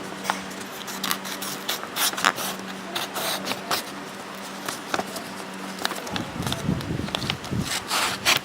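Handling of a folding stainless steel multi tool: a string of irregular clicks and short scrapes, with a denser rumbling stretch about six seconds in, over a steady low hum.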